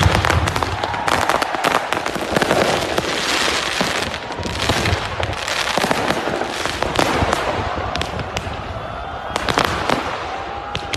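Ground-launched fireworks firing continuously: a dense crackling of many sharp pops and bursts, thinning slightly near the end.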